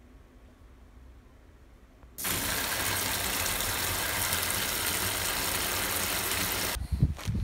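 Tap water running onto sealed plastic food pouches in a stainless steel sink: a steady rush that starts suddenly about two seconds in and cuts off near the end, followed by a few low thumps.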